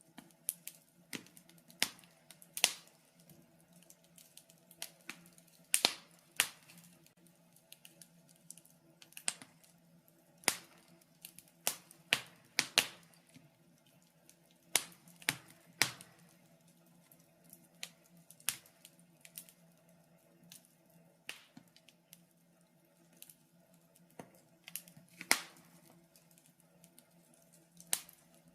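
Wood fire crackling in a fireplace: irregular sharp pops and snaps, some much louder than others, over a faint steady hum.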